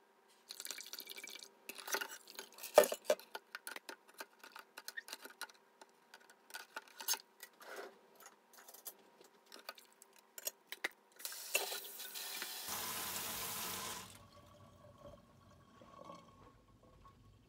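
Silver pieces clinking and knocking against each other and the stainless-steel sink as they are lifted out of a hot baking-soda bath, with water splashing and dripping; the loudest knock comes about three seconds in. About eleven seconds in, water runs hard for about three seconds, then only faint clatter is left.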